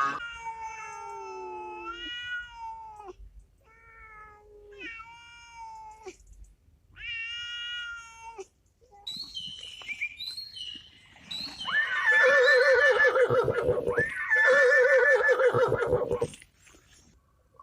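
Cat meowing several times with gliding, drawn-out calls, then thinner high-pitched mews, and near the end two long, loud, wavering yowls.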